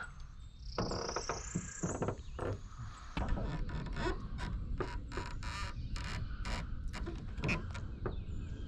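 Wind rumbling on the microphone, with a string of irregular clicks and rustles from handling gear, and a short high rising whistle about a second in.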